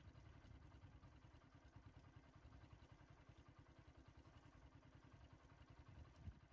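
Faint, steady low rumble of a vehicle engine idling, with a single brief tick near the end.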